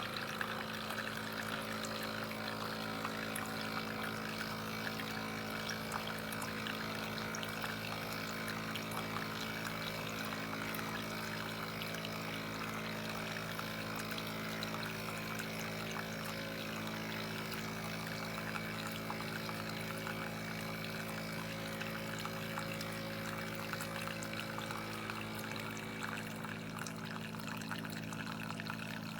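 Philips L'OR Barista Sublime capsule coffee machine brewing: its pump hums steadily while coffee pours into the cup.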